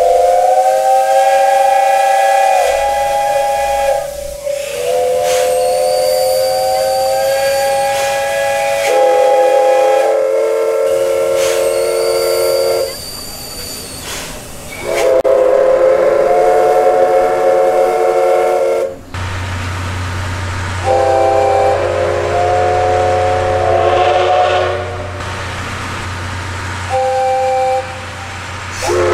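A steam locomotive's whistle sounding a series of long blasts, several seconds each, the pitch shifting between and sometimes within blasts. Steam hisses in the short gaps between them.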